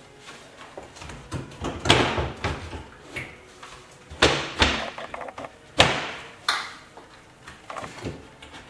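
Ceramic glass cooktop being lowered and pushed into its benchtop cutout: a series of knocks and short scraping slides as its edge trim meets the benchtop. The loudest come about two seconds in and around four and six seconds in.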